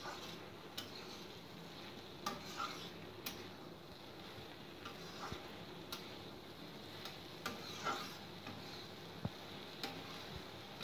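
Spatula stirring taro stolons and prawns in a kadai over a high flame, with irregular clinks and scrapes against the pan over a faint, steady sizzle as the dish fries after simmering.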